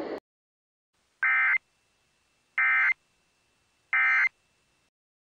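Emergency Alert System end-of-message signal: three short bursts of SAME digital data tone, a shrill warbling screech, about 1.3 s apart. The bursts mark the close of the alert message.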